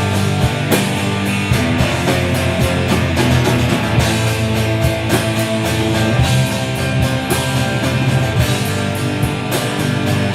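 Instrumental stretch of a rock song: distorted electric guitars and bass over a steady drum beat, with no vocals.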